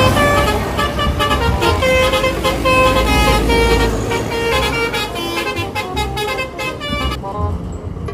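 Multi-tone 'telolet' bus horn playing a quick melody of changing notes over a low engine rumble, stopping about seven seconds in.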